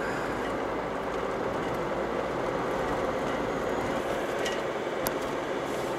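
Steady road and engine noise inside a moving van, with a faint hum and a couple of light clicks a little after the middle.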